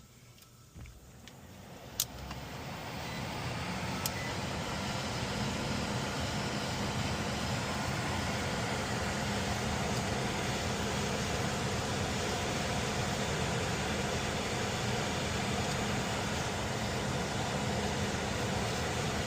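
HVAC air handler's ECM blower motor starting up, its airflow rising smoothly over a few seconds and then holding as a steady rush of air with a hum. A single click comes about two seconds in.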